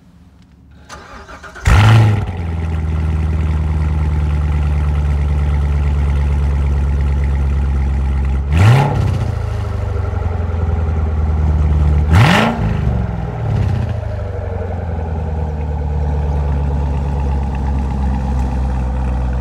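Chevrolet C7 Corvette Stingray's 6.2-litre LT1 V8 with the Z51 performance exhaust starting from cold: a short crank, then it fires with a loud flare about two seconds in and settles into a steady idle. It is revved briefly twice, at about nine and twelve seconds in, each rev rising and falling back to idle.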